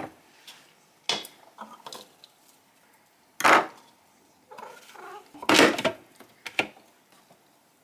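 Several separate knocks and clatters of a knife and kitchen things on a cutting board as chopped pepper and apple are handled, about four loud ones spread out, with quieter handling between.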